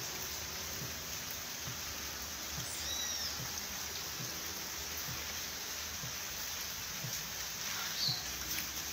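Steady rain falling on trees and a bare dirt yard. A bird gives a short call about three seconds in and another brief chirp near the end.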